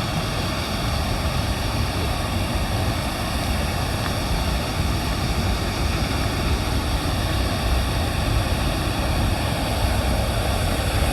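Strong wind buffeting the microphone, a steady rumble, over the rush of water pouring over a man-made weir.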